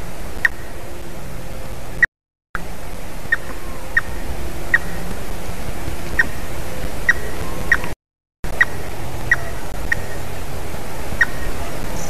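Grey-headed woodpecker making about a dozen short, sharp ticks at irregular intervals, over a steady hiss. The audio drops out briefly twice.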